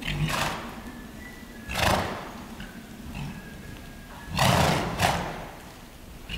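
A ridden horse at the trot snorting, blowing air out hard through its nostrils about four times at uneven intervals, with two snorts close together past the middle.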